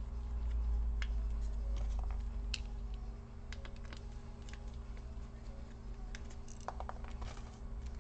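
Light, scattered clicks and ticks of a precision screwdriver working the tiny screws on a laptop cooling fan's plastic cover, with the fan housing shifting in the hand and a small cluster of clicks near the end. A low rumble runs underneath, strongest in the first few seconds.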